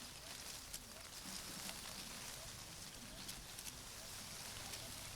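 Leaves rustling in the wind: a faint, steady hiss with scattered light crackles.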